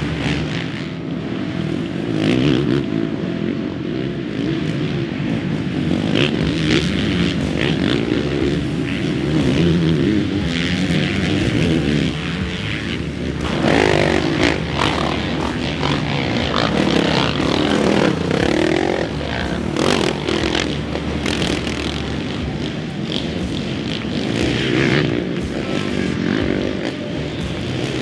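Off-road dirt bike engines racing on a trail, revving up and down repeatedly as bikes pass.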